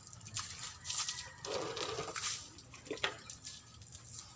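Water splashing and spraying in irregular hissing bursts while a heavy excavator is washed down, with a sharp click about three seconds in.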